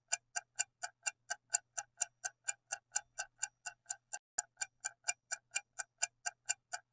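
Steady clock-tick sound effect, about four even ticks a second, counting down the thinking time for a quiz question.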